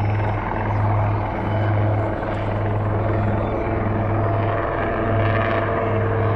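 Two military helicopters hovering, a steady rotor and turbine drone with a deep hum that swells and eases about once a second.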